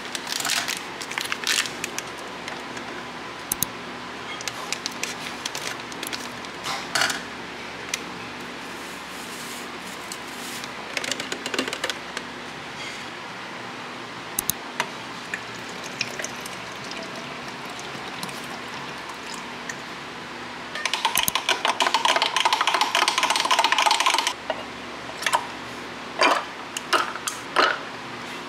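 Instant iced coffee being made in a glass mason-jar mug: scattered clinks and taps on the glass, then about three seconds of rapid, dense clinking near the end, over faint background music.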